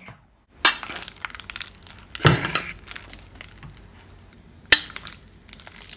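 Bananas being mashed by hand for banana bread, close to the microphone: three sharp clinks, the loudest a little over two seconds in, with a wet crackling squish between them.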